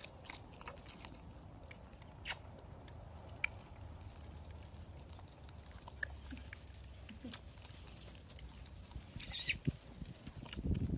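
Great Dane licking a puppy and the puppies mouthing, heard as scattered wet smacking and clicking sounds over a low steady rumble, with a few louder knocks near the end.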